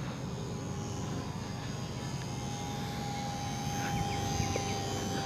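Small electric RC trainer plane, a HobbyZone Super Cub S, whining with its motor and propeller as it flies, growing slowly louder.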